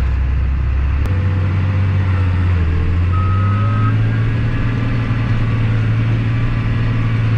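Tractor engine working hard under load as it pulls the planter through a muddy hole, in danger of getting stuck; its pitch steps up about a second in and again around three seconds in. A single short steady beep sounds a little after three seconds.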